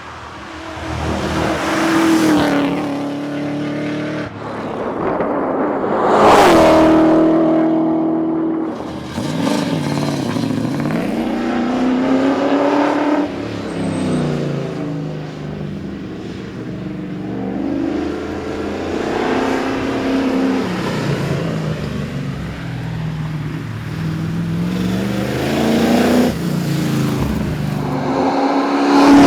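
Holden Commodore VH SS Group 3's V8 engine being driven hard on a tarmac rally stage. The revs climb and drop again and again through gear changes and corners, with the strongest surge about six seconds in.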